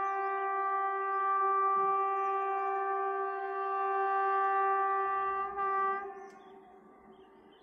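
Train locomotive horn sounding one long, steady blast that fades out about six seconds in.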